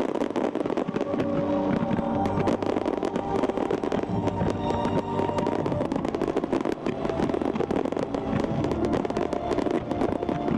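Aerial fireworks crackling and popping in a dense, continuous barrage, mixed with music playing underneath.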